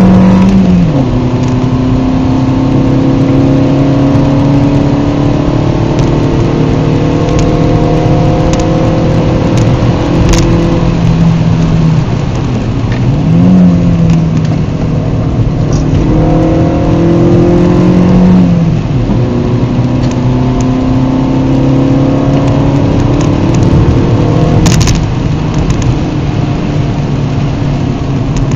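Seat Ibiza SC's engine heard from inside the cabin while driving: the engine note climbs slowly under acceleration and drops at gear changes about a second in and again about 18 seconds in, with a short rev blip around 13 seconds. Steady road and tyre noise runs underneath, with a couple of brief knocks, the clearest near the end.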